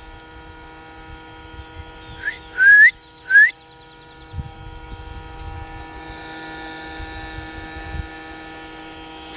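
Small electric motor of a bubble machine humming steadily. About two to three seconds in come two short rising squeaky calls, and a low rumble follows in the middle.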